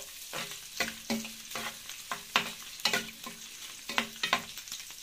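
Parboiled chicken gizzards sizzling in hot ghee in an aluminium frying pan while a metal spoon stirs them, scraping and knocking against the pan about ten times, each knock ringing briefly.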